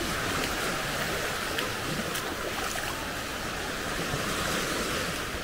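Small Baltic Sea waves washing onto a sandy beach: a steady rushing wash.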